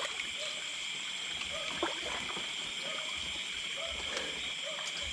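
Frogs calling in short croaks, a handful of times, over a steady high-pitched drone of insects.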